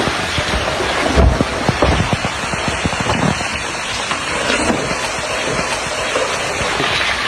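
A landslide on the move: a steady rushing rumble of sliding earth and debris, broken by many low thuds and cracks, heaviest in the first few seconds.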